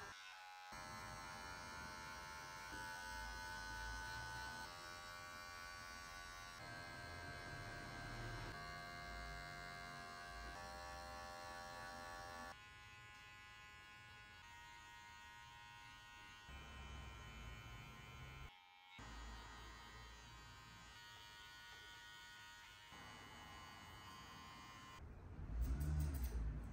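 Electric hair clippers buzzing steadily through a fade haircut, the pitch of the buzz shifting as the blade meets the hair; the sound breaks off briefly twice. Near the end a louder, lower sound comes in.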